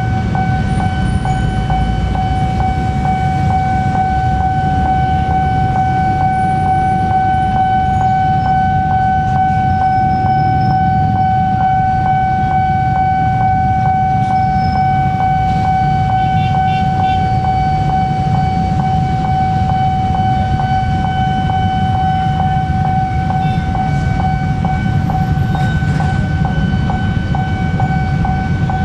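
Level crossing warning bell ringing steadily, about two strikes a second, which blend into one continuous ringing tone. Under it is the low rumble of a diesel locomotive and container train approaching.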